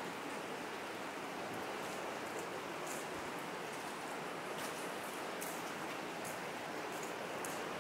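Steady white-noise hiss of trickling and dripping water echoing in an old railway tunnel, with faint short ticks scattered through it.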